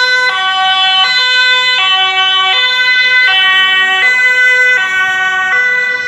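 Ambulance siren sounding its two-tone call as the ambulance passes, switching between a high and a low note about every three-quarters of a second.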